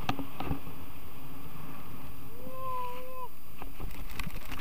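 Steady wind rushing over the camera microphone of a speedflying wing in fast flight, with a few sharp clicks just after the start. A single drawn-out call, held at one pitch for about a second, sounds near the middle.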